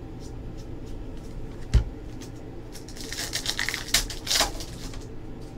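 Hands handling trading cards and a card-pack wrapper: light ticks of cards, a single dull thump a little under two seconds in, then the pack wrapper crinkling and tearing open for about a second and a half with a couple of sharp snaps.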